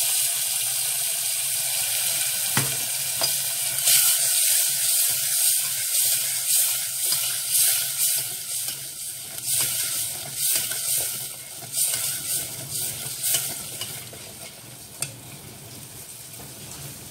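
Blended chilli, dried-shrimp and turmeric paste sizzling with many pops as it fries in a hot stainless steel pot, stirred with a ladle. The sizzling grows quieter about fourteen seconds in.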